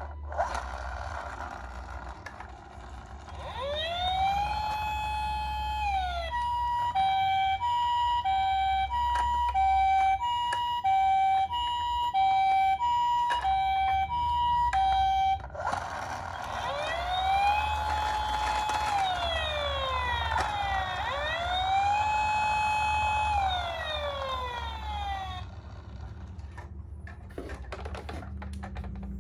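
Electronic sirens of toy ambulances. First comes one wail that rises, holds and falls. Then a high-low two-tone siren switches about every half second, the Japanese ambulance "pii-poo" pattern, and near the end overlapping wails rise and fall.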